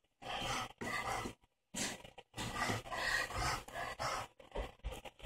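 A dog panting in quick rhythmic breaths, about two a second.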